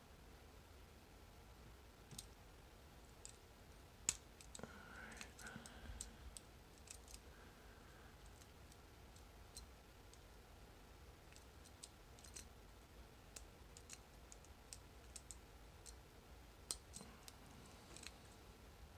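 Faint, sparse metallic clicks and ticks of a lock pick and tension wrench working the pin stacks inside an old Corbin Master Ring padlock, with one sharper click about four seconds in and small clusters of clicks near the middle and near the end.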